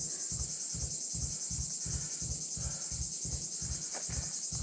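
A dense chorus of forest insects keeps up a continuous high, shrill buzz. Underneath it runs a low pulsing, about four beats a second.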